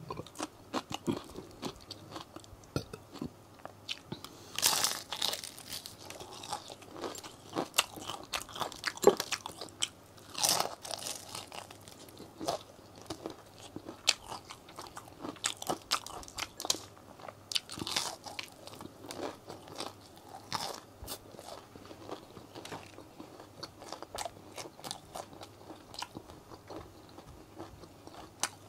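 Close-miked eating of crispy fried chicken: irregular crunching bites of the breaded crust and moist chewing, with louder crunches about five and ten seconds in.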